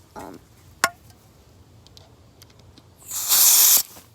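A sharp metallic click about a second in, then near the end a loud, short hiss of pressurised gas escaping from the Echo1 TAP airsoft pistol, gas that sprays out cold enough to sting the skin.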